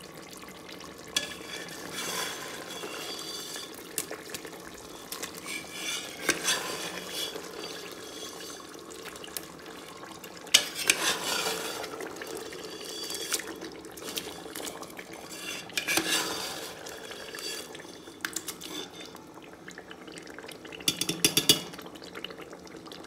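A metal ladle stirring thick pork curry in a pressure-cooker pot, scraping and clinking against the pot's sides in short bouts, with a quick run of clinks near the end.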